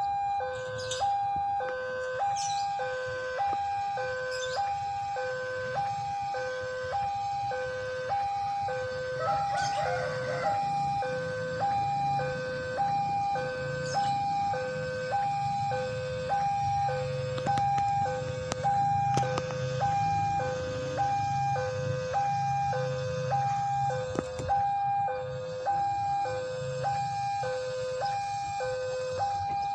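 Railway level-crossing warning alarm sounding its two-tone electronic signal, alternating a high and a low tone about once a second, the warning that a train is approaching.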